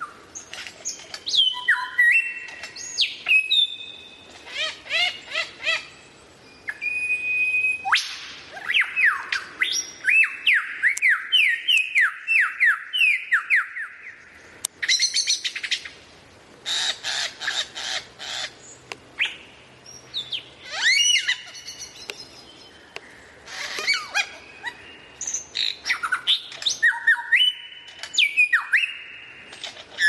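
Songbird singing a loud, varied song: falling whistled notes, runs of repeated notes and fast chattering trills, in phrases with short pauses between them.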